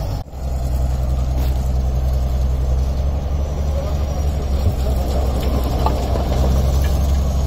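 Heavy crawler dozer's diesel engine running steadily with a low rumble, dipping briefly just after the start.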